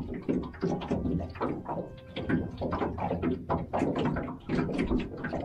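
Small waves slapping against the hull of a small aluminium jon boat in quick, irregular knocks and splashes, over the steady low hum of an electric trolling motor running slowly.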